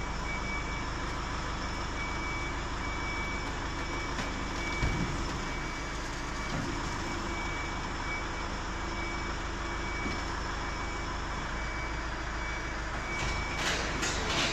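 A truck's hydraulic system runs steadily while a body panel is raised by remote control, with a warning beeper sounding in an even pulse. A couple of knocks come about five and six and a half seconds in, and a few clicks come near the end.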